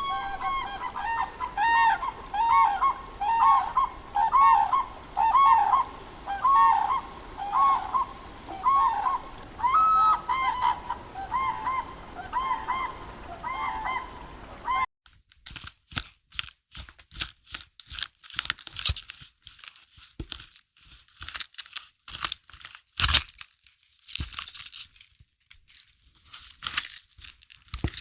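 Geese honking over and over in quick succession, several calls a second. About halfway through it cuts abruptly to a run of sharp, irregular crunching clicks.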